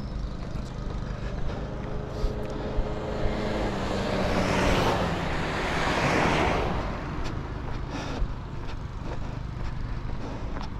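A car passing close by on the road: its tyre and engine noise swells for about three seconds in the middle and then fades, over a steady low rumble.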